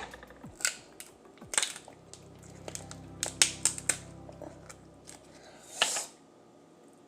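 King crab leg shells being cracked and snapped open: a series of sharp cracks, with a quick run of them a little past the middle and a louder crunch near the end.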